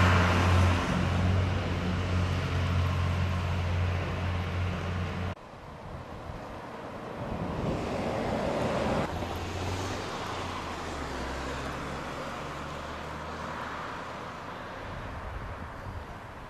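Car engine and road noise in several edited pieces: a steady low engine hum that stops abruptly about five seconds in, a swell of traffic noise in the middle, then a quieter low hum.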